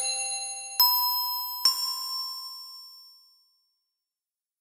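Short intro jingle of bell-like chime notes: three struck notes about a second apart, each ringing on, with the last fading out over about two seconds.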